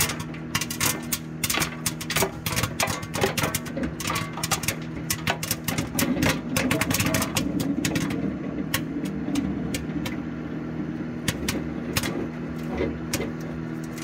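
Popcorn kernels on a whole cob bursting one after another in a running microwave oven, a rapid irregular crackle of sharp pops over the oven's steady hum. The popping is dense at first and thins out after about the halfway point as most kernels have popped.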